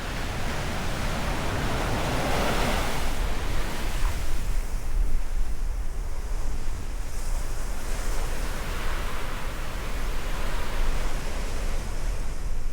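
Rough sea surf breaking on the shore, a constant rush of water that swells louder about two seconds in and again about eight seconds in, with wind rumbling on the microphone.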